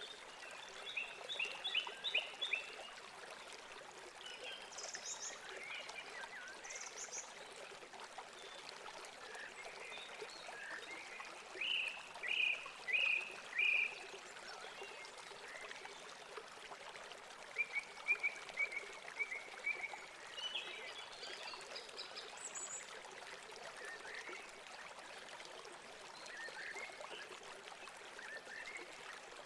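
Birds chirping in short quick runs of notes over a steady hiss like running water.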